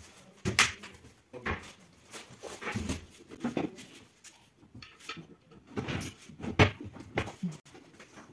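Knocks and scrapes of white flat-pack furniture being handled and a drawer being slid onto its metal runners in a chest of drawers: a string of sharp wooden knocks, the loudest about half a second in and again near the end.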